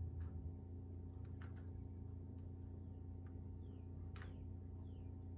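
Steady low hum with faint, irregular ticks and a few short falling chirps.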